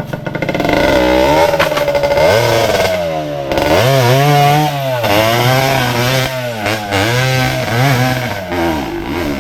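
Enduro dirt bike engine revving hard, its pitch rising and falling again and again as the rider works the throttle through a rough trail section, with a few knocks early on.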